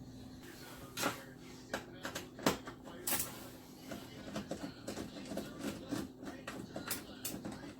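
Irregular clicks and knocks of plastic and metal dishwasher control-panel parts being handled and fitted, over a steady low hum.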